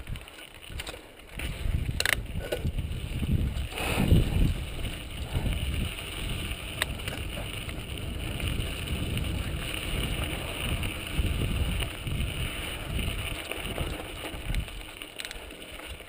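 2003 Intense Tracer mountain bike rolling along a dirt singletrack, heard from a helmet camera: a steady rumble of tyres on dirt with wind buffeting the microphone, and a few sharp knocks from bumps about two and four seconds in.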